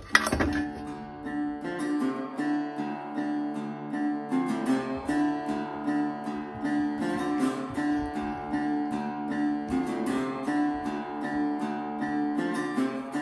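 Acoustic guitar music, strummed and plucked in a steady rhythm.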